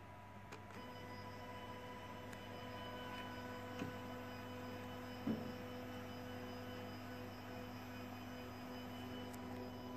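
Stepper motor of a homemade 3D printer's Z-axis whining steadily as it turns the two threaded rods through a closed-loop timing belt, back-driving the idle motor on the other side. The whine starts about a second in over a low steady hum, with two light knocks near the middle.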